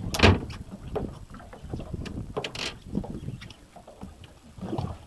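Water slapping against the hull of a small fishing boat at sea, with wind buffeting the microphone and two louder hits, one near the start and one about two and a half seconds in.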